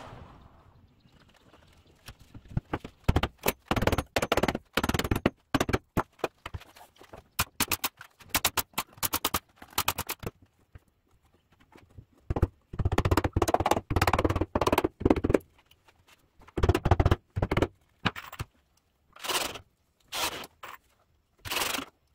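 Woodworking assembly noises from building a pine desk frame: short bursts of knocks, clicks and scraping that start and stop abruptly. There is a dense run of rapid clicks in the middle and a longer noisy burst a little past halfway.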